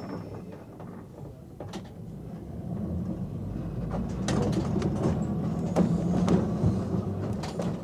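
Electric tram running on its rails: a low hum that builds over the first few seconds, with scattered clicks and knocks from the wheels and running gear.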